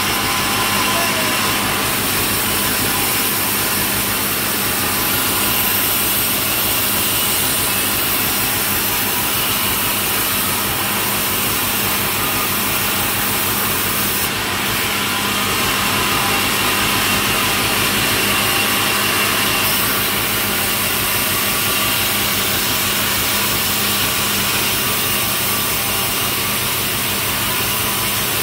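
Sawmill saw running steadily, its motor humming under the noise of the blade cutting through a log.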